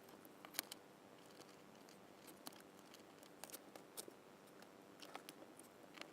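Faint, scattered sharp clicks and light taps of small hard parts being handled, such as 3D-printed plastic pieces and small hardware, with the loudest click about half a second in.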